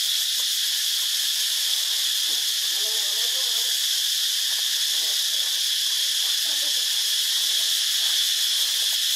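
Steady, even drone of insects, high-pitched and unbroken, with faint wavering sounds underneath.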